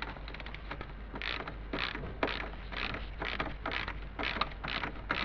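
Ratchet wrench turning a bolt under a car, worked back and forth so its pawl clicks in short runs about twice a second.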